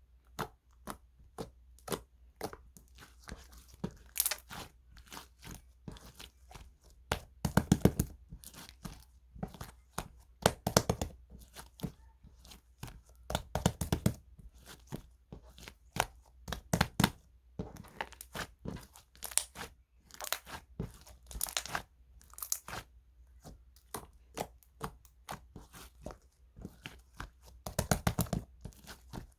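Slime being squished, stretched and folded by hand, making a dense run of irregular clicks with louder clusters every few seconds.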